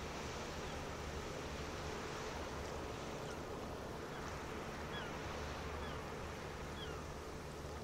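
Steady low hum of the MSC Poesia cruise ship's machinery carrying across the water over an even hiss. About five seconds in, three short falling bird calls come roughly a second apart.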